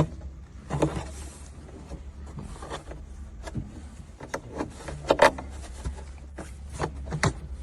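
Plastic car interior trim and air-vent ducting being handled and fitted: irregular sharp clicks and knocks with rustling between them, the loudest a quick pair a little past five seconds in, over a low steady hum.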